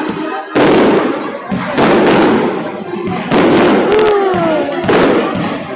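Aerial fireworks display: four loud shell bursts about a second and a half apart, each a sudden boom that rings out before the next.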